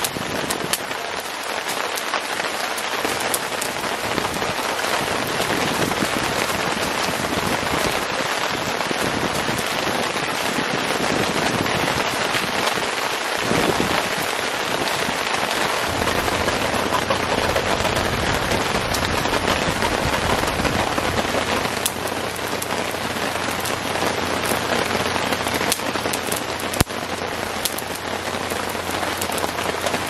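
Heavy rain falling steadily, with wind blowing. A low rumble joins about halfway in.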